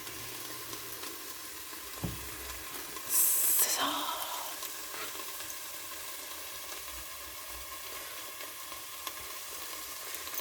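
Steady sizzling of food frying in a skillet, the pan of bacon fat in which the buns are toasting. There is a soft knock about two seconds in and a brief, louder flare of hiss a second later.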